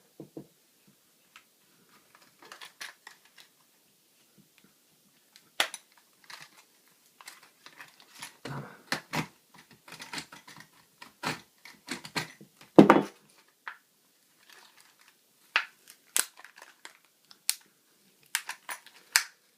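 Stiff plastic packaging being cut and torn open with a pen knife: irregular crackling, snapping and crinkling, with one loud crack about two-thirds of the way through.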